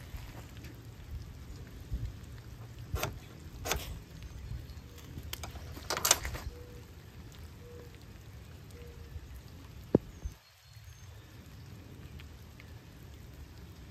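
Steady rain falling, with three short scraping strikes of a ferro rod a few seconds apart in the first half and a sharp click near the end.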